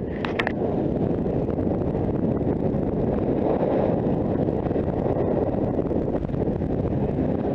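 Rushing wind on a helmet-mounted camera's microphone, mixed with the snowboard sliding over snow during a fast descent. It is a loud, steady, low rumble, with a few sharp clicks at the very start.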